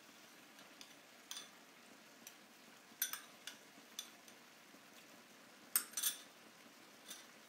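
A metal spoon clicking lightly against a small glass bowl: a handful of scattered taps with quiet between them, the strongest pair about six seconds in.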